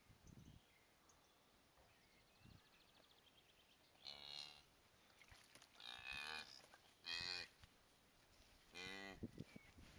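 Cow mooing in four short calls, the calls a cow makes to her newborn calf just after calving.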